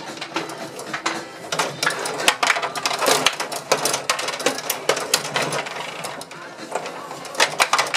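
Gretzky rod table hockey game in fast play: steady, rapid clicking and clattering as the control rods are pushed, pulled and spun, the plastic players knocking against the puck and each other, with sharper knocks throughout.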